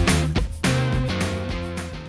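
Background rock music with guitar, fading out near the end.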